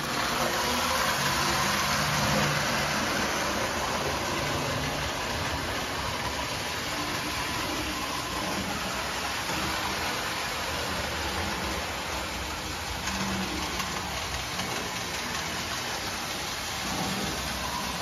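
Marx 994 tinplate toy steam locomotive, fitted with a Marx 333 or 1829 motor, running steadily around tubular three-rail track: a continuous electric-motor whir and rolling rumble of wheels on the metal rails.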